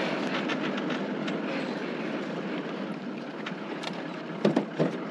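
Steady rolling and clattering noise of a 4WD towing a camper trailer on a dirt track, with a few sharp knocks about four seconds in.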